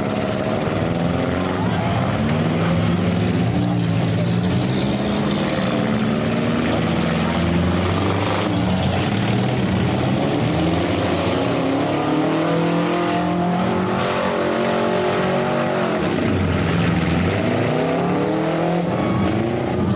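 Several demolition derby cars' engines revving at once, their pitches overlapping and repeatedly rising and falling as they accelerate and back off.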